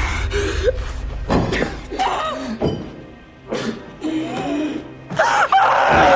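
Dramatic music score under a woman's anguished sobbing and wailing, which grows loudest near the end.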